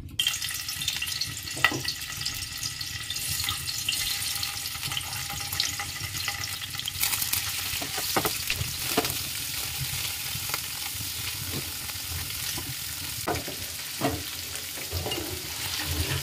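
Paneer cubes sizzling as they drop into hot oil in a frying pan and shallow-fry, the sizzle starting suddenly as the first pieces go in. Scattered knocks and scrapes of a metal spatula turning the pieces in the pan.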